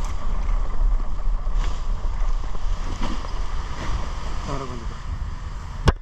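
Wind buffeting the camera microphone, a steady low rumble with a faint hum above it. A brief voice about four and a half seconds in, and a sharp click near the end.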